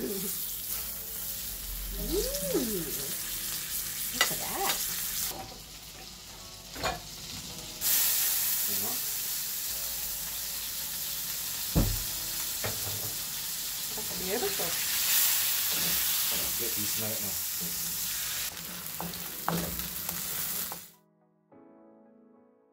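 Steak and garlic sizzling in hot oil in a frying pan, a steady hiss broken by a few sharp clinks and taps of a metal fork against the pan as the meat is turned. Near the end the sizzle cuts off suddenly and faint soft piano music begins.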